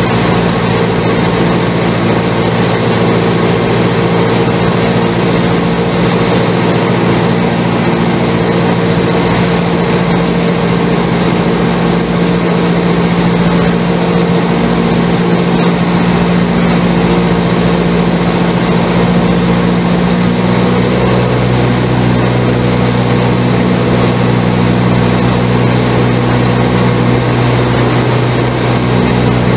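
Cessna 172's piston engine and propeller droning steadily in flight, heard from inside the cockpit. The engine note shifts about two-thirds of the way through.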